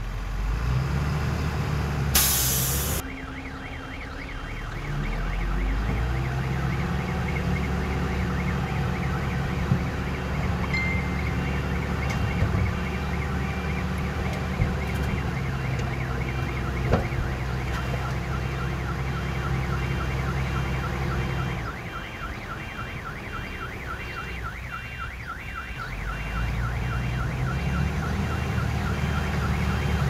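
Diesel engines of heavy earthmoving machinery running, their rumble easing off for a few seconds about two-thirds of the way through. A reversing alarm beeps steadily throughout, a lower-pitched second beeper joins about halfway, and a short burst of hiss sounds about two seconds in.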